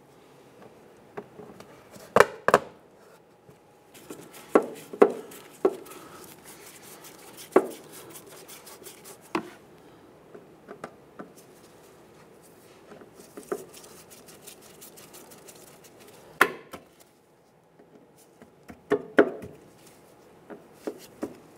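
Plastic push-pin retaining clips being pressed into a plastic inner fender liner: a string of sharp clicks and snaps at uneven intervals, some in quick pairs, with faint rustling of the liner between them.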